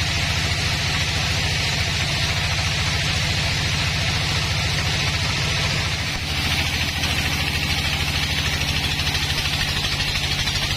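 Sawmill engine running steadily, with a steady hiss above it and a brief dip in level about six seconds in.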